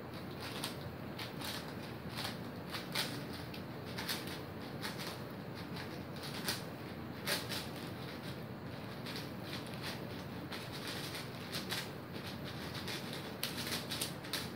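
Rapid, irregular clicking and clacking of a Cubicle Magnetic WuShuang 5x5 speed cube as its layers are turned fast during a timed solve, with bursts of quicker turning, over a steady hiss.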